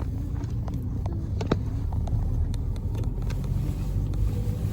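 Car cabin noise while driving: a steady low engine and road rumble, with a few light clicks and knocks, one a little louder about one and a half seconds in.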